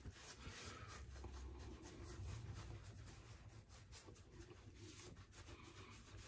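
Faint, irregular rubbing of a cloth towel against a bearded face and neck as it is dried.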